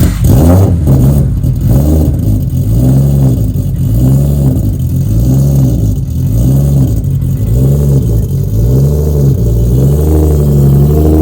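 Nissan RB26 inline-six in an R32 Skyline GT-R catching right at the start, then running loud, its pitch rising and falling evenly a little more than once a second.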